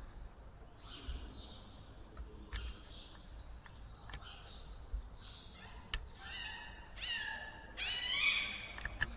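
Cats yowling at each other in a standoff: a few sharp clicks at first, then drawn-out, wavering yowls from about six seconds in, getting louder toward the end.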